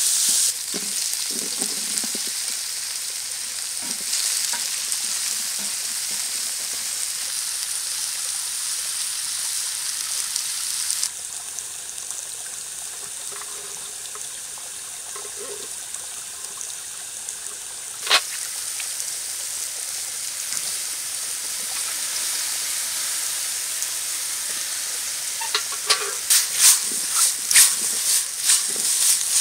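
Vegetables sizzling and frying in a metal pan over a wood fire, a steady hiss that is loudest as sauce is poured in at the start. The hiss drops to a quieter stretch in the middle. Near the end comes a quick run of sharp clicks and knocks, typical of stirring in the pan.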